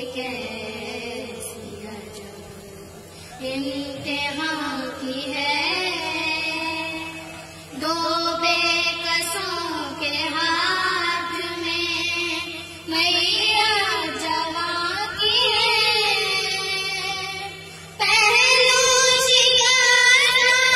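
Two girls singing a noha, a Shia mourning lament, together into a handheld microphone in long drawn-out phrases that break off and start again; the last phrase is the loudest. A steady low hum lies under the voices.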